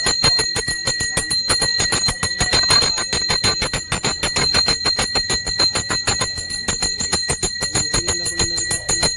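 Puja bells (ghanti) rung rapidly and without pause: a fast train of strikes, many a second, over a clear steady ringing.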